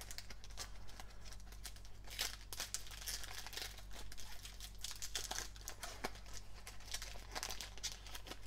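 Foil trading-card pack wrapper being torn open and crinkled by hand: irregular crackling and tearing of the thin metallic wrapper as the cards are pulled out.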